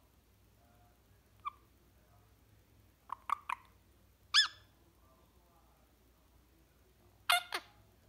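Indian ringneck parrot giving a few short chirps and squeaks: a soft one about a second and a half in, a quick cluster around three seconds, a louder rising-and-falling chirp at about four and a half seconds, and two sharp calls near the end.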